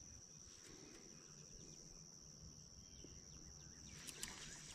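Near silence with a faint, steady high-pitched insect trill, as of crickets, and a few light clicks near the end.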